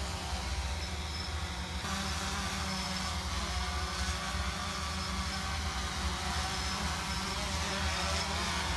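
Motor of a remote-controlled grass blower running steadily.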